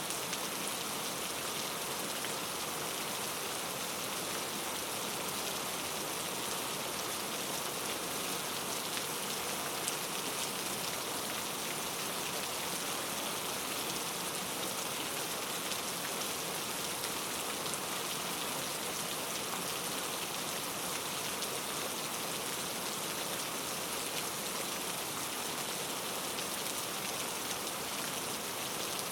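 Steady rain falling, a continuous hiss of many fine drops pattering on a surface.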